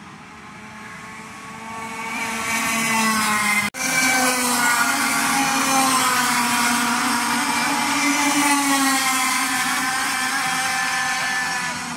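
Racing go-kart engines going past on a street circuit: several high, whining engine notes build about two seconds in, stay loud with slightly wavering pitches, and fade near the end. There is a split-second dropout in the sound a little before four seconds in.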